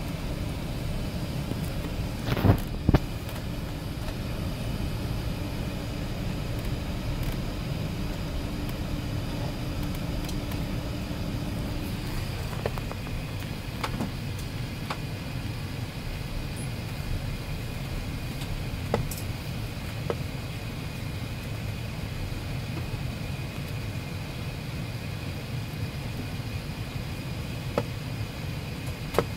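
Steady low rumble of cabin noise inside an Airbus A380 on the ground. Two sharp knocks come about two and a half seconds in, with a few fainter clicks later. A faint hum stops about twelve seconds in and a faint high whine follows.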